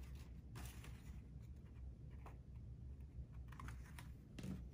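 Faint rustling and a few soft clicks of a construction-paper pop-up card being folded shut and opened flat by hand.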